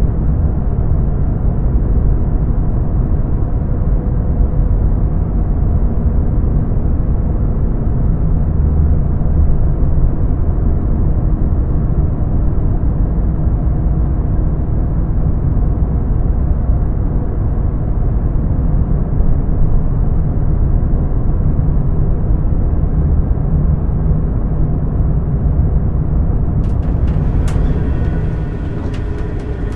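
Steady low rumbling background noise, like distant traffic. Near the end a sharp click comes in, followed by a thin higher hum.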